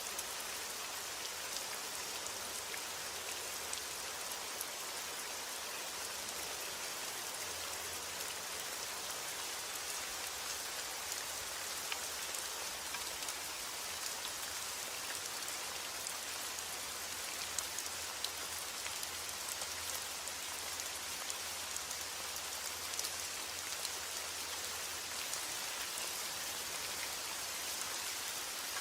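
Heavy rain falling steadily on a forest: a dense, even hiss with scattered sharper drop ticks.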